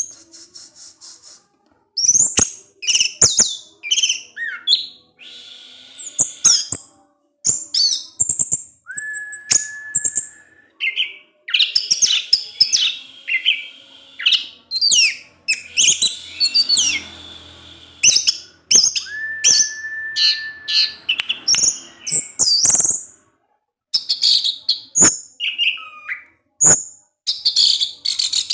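Orange-headed thrush singing: quick varied phrases of high chirps, trills and gliding notes broken by short pauses, with a long steady whistle twice, about a third and about two-thirds of the way through.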